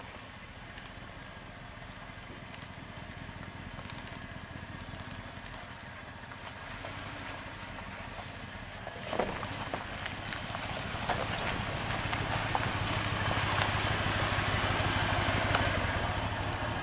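Toyota Land Cruiser engine running at low speed as it crawls down a rocky dirt trail, with tyres crunching over gravel and stones. It grows louder in the second half as it comes close, with a single knock about nine seconds in.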